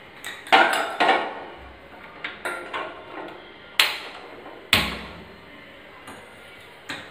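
Sharp metallic knocks and clanks of a steel saucepan being set on a gas stove's burner grate and handled. There are several light knocks, then two loud clanks about a second apart near the middle, the second with a dull thud.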